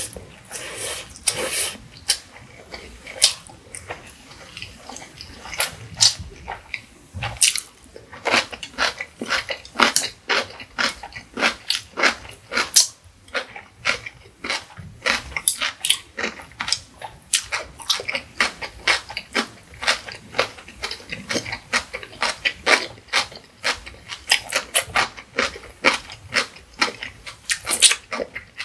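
Close-miked eating sounds of a person with a mouthful of Indomie Mi Goreng instant noodles: a slurp near the start, then steady wet chewing with quick, rhythmic mouth smacks.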